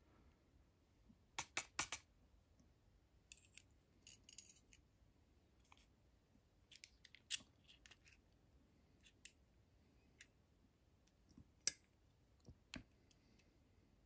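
Scattered small metal clicks and taps as tweezers pull pins and springs out of a brass lock cylinder's chambers and set them down in a pin tray, with the sharpest single click late on.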